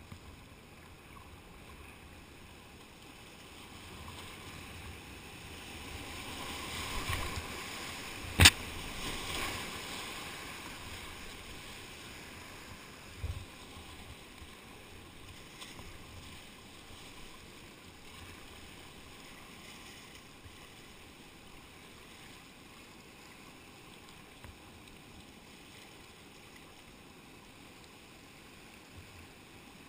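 River whitewater rushing around a kayak. The water noise swells between about four and eleven seconds in as the boat runs a rapid. There is one sharp, loud knock about eight seconds in and a smaller knock about five seconds later.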